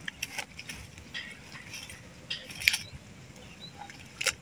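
Light clicks, clinks and rustles of cooking things being picked up and handled on the ground, with sharp clicks about two and a half seconds in and again near the end.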